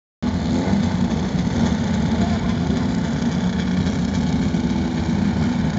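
Engines of several off-road race buggies idling together on the start grid, a loud, steady low drone.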